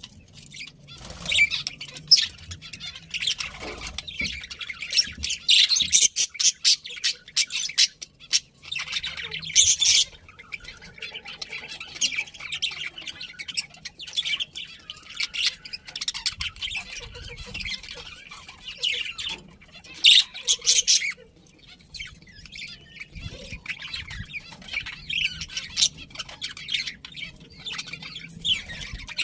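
Several budgerigars chirping and chattering without pause, with louder calls about ten and twenty seconds in.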